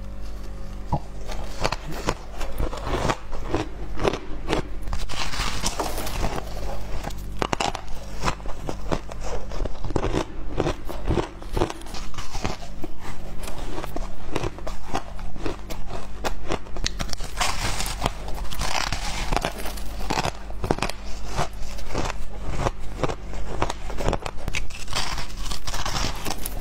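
Close-miked crunching and crackling of packed shaved ice, squeezed in gloved hands and bitten, with many sharp crackles throughout. A faint steady low hum runs underneath.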